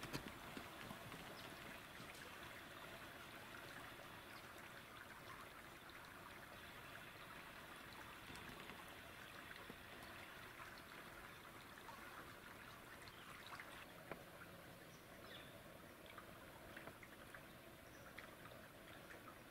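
Near silence: a faint, steady outdoor hiss, with a few faint clicks.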